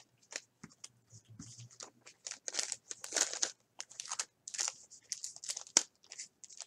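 Foil wrappers of 2010 Bowman baseball card packs crinkling and tearing as the packs are handled and opened: quick crackly rustles, sparse at first and busier after about two seconds.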